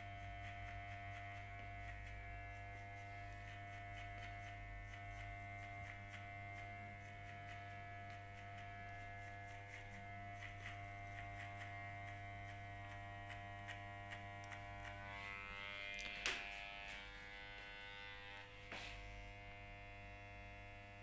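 Electric hair clipper running with a steady buzz as it is worked over short hair to blend a cut line. A couple of sharp clicks come in the last few seconds.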